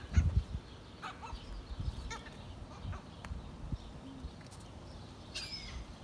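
Gulls calling: short cries scattered through, and one longer call that falls in pitch near the end, with a low buffeting in the first half second.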